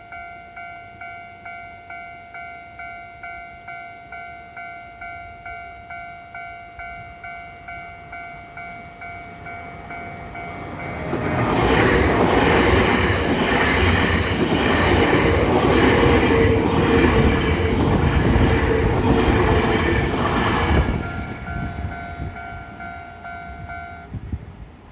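Level-crossing warning bell ringing steadily at about two strikes a second. About eleven seconds in, a Nankai Main Line train passes loudly for about ten seconds, with wheels clattering over the rail joints. The bell stops just before the end.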